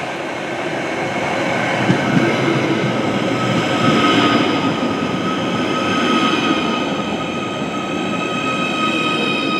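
Merseyrail Class 777 electric multiple unit pulling into the platform and slowing past, its wheels rumbling on the rails under several steady high whining tones. It is loudest as the front of the train draws level, about two to four seconds in.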